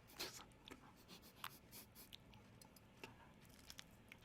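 Near silence with faint rustling and scattered small clicks, and a short breathy noise just after the start.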